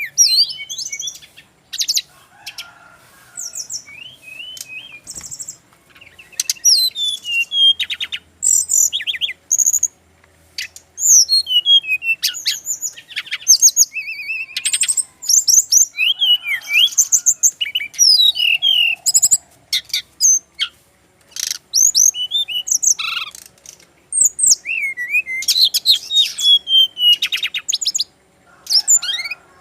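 A sikatan rimba (jungle flycatcher) singing: quick phrases of high chirps, trills and down-slurred whistles, with short pauses between phrases.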